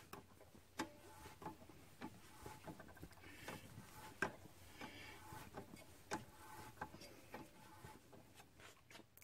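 Threading die in a hand die stock being turned on a steel stud clamped in a vise: faint metal scraping with uneven sharp clicks, one or two a second, as the die is worked round the threads.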